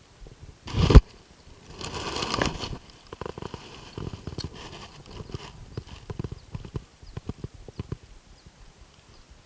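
Lure-fishing with a casting rod and reel: one sharp, loud hit about a second in, a short rushing noise a second later, then a run of irregular clicks and knocks as the lure is worked back.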